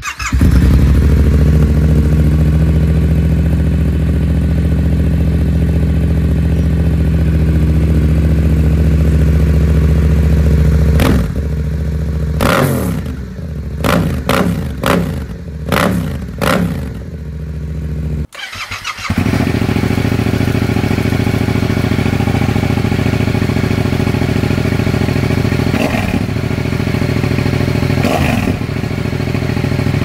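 Yamaha XSR700's 689 cc parallel-twin running through aftermarket exhausts: a steady, loud idle, then a run of about eight quick throttle blips on a Scorpion silencer. After a brief cut, another steady idle with two light blips near the end.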